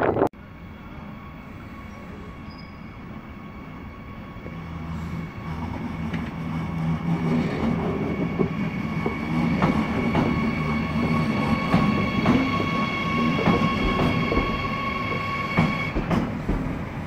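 Red DB electric locomotive hauling a train past on the adjacent track. The rumble grows louder as it comes alongside, the wheels knock over the rail joints, and a steady high whine stops near the end.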